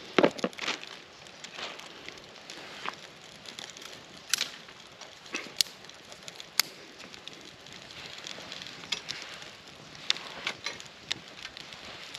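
Freshly lit birch kindling crackling and popping in a small wood-burning camp stove, with irregular sharp pops over a steady hiss. A few louder knocks come right at the start.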